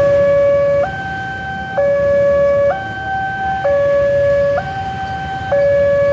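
Railway level-crossing warning alarm sounding a two-tone electronic signal, switching between a low and a high note about once a second. It warns of an approaching train while the crossing barrier lowers.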